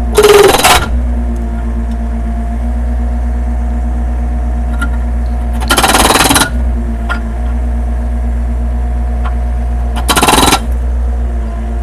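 Cat B1 hydraulic breaker hammer firing three short bursts of rapid blows, several seconds apart, over the steady running of the Cat 308 mini excavator's diesel engine.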